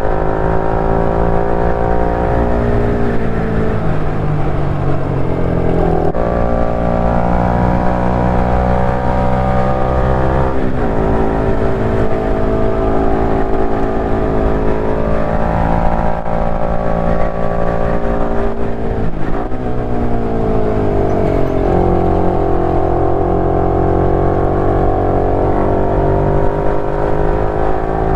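KTM 390 Duke's single-cylinder engine running under way, its note dropping in pitch and levelling off again several times as the revs come down and pick up with throttle and gear changes.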